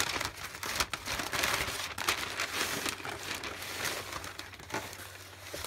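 Kraft paper wrapping rustling and crinkling as it is folded back by hand, dense at first and growing quieter toward the end.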